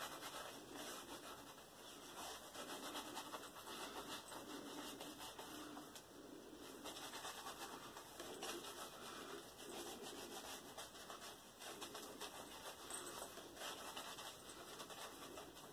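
Shaving brush working shaving cream lather over a leg: faint, soft wet scratching and rubbing that keeps on throughout.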